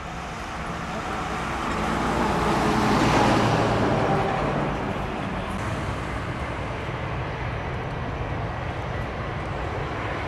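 Jet airliner engine noise, swelling to its loudest about three seconds in, then easing to a lower steady level.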